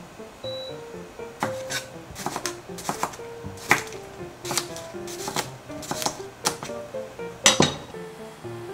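Kitchen utensils and dishes knocking and clinking at irregular intervals during food preparation, with the loudest knock about three-quarters of the way through. Light background music with a simple melody plays throughout.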